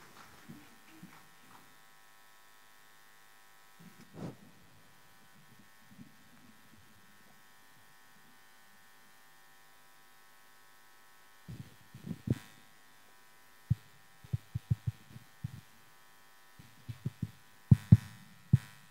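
Steady electrical hum from a sound system, with a few soft knocks. From about twelve seconds in comes a run of irregular low thumps and bumps picked up by the microphones, several of them sharp and loud.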